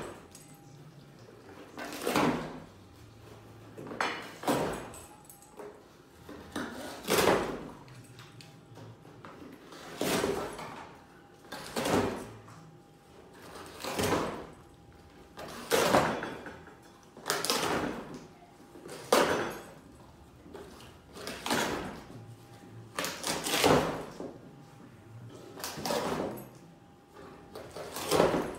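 A caracal tearing and chewing at a cardboard box and shoving it over a tiled floor: short rasping bursts of ripping and scraping cardboard, about one every two seconds.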